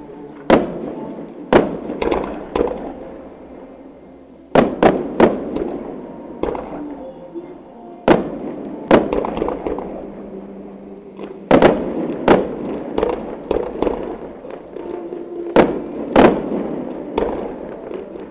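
Fireworks display: aerial shells bursting in loud bangs, often two to four in quick succession, every second or few, each followed by a long echoing rumble and crackle.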